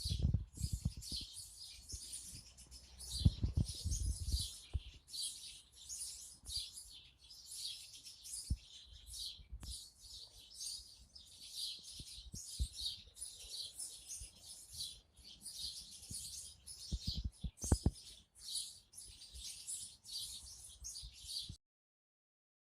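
Small birds chirping and twittering continuously in dense high-pitched calls, with occasional low thumps. The sound cuts off abruptly near the end.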